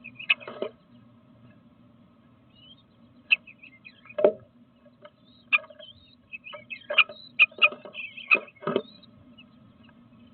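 Irregular taps and scratches of a bluebird's feet and bill on the wooden nest box, with a few faint chirps, over a low steady hum.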